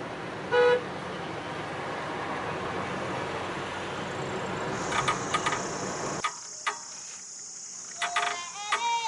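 Steady road noise of a moving vehicle, with one short vehicle horn toot about half a second in. About six seconds in the road noise cuts off abruptly, followed by a couple of clicks and then a sung melody starting near the end.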